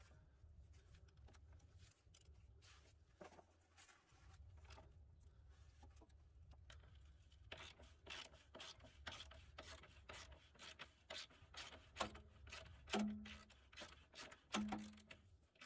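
Faint, irregular clicking and scraping of a ratchet and 19 mm socket working the tight rear control arm bolt loose, growing busier and louder about halfway through.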